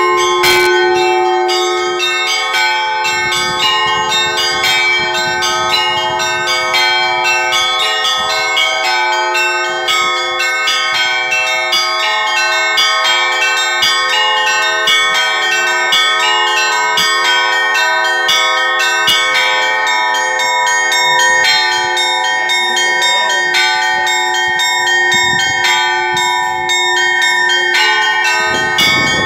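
A peal of church bells: several bells of different pitches struck in quick, continuous succession, ringing over one another.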